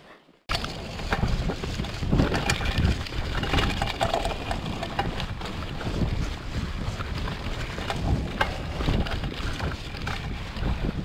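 Mountain bike rolling fast over a leaf-covered forest dirt trail: tyre rumble and wind rushing on the microphone, with frequent knocks and rattles as the bike is jolted over the uneven ground. The noise cuts in about half a second in.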